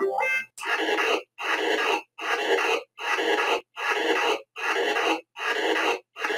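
A voice making about nine evenly spaced breathy huffs with no pitch to them, about one and a half a second, with short silences between.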